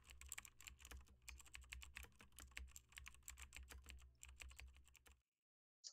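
Faint, rapid typing on a computer keyboard, several keystroke clicks a second over a low hum, stopping about five seconds in.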